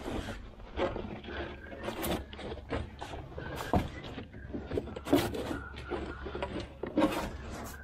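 Irregular knocks, clicks and scraping of things being handled, with a faint thin squeak now and then.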